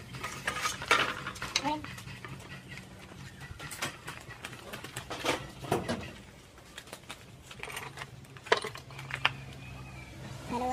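Metal hand tools clinking and clattering in scattered knocks as they are rummaged through in plastic tool trays, over a steady low hum.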